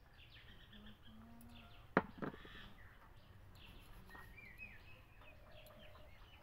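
Small birds chirping with many short, high calls. About two seconds in come two sharp clicks a quarter-second apart, the loudest sound.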